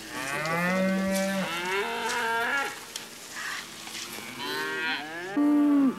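A cow mooing: one long call lasting about two and a half seconds, followed by shorter, quieter calls.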